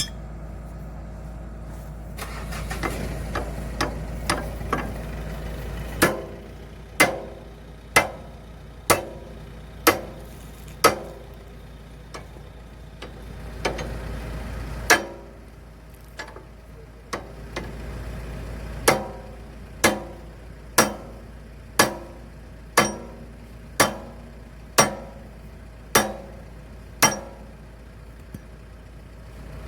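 Heavy hammer blows on steel, struck about once a second in two runs with a short pause between, each ringing briefly: a link pin being driven into the excavator's H-link, which would not go in by hand. Under the blows, the excavator's diesel engine runs steadily.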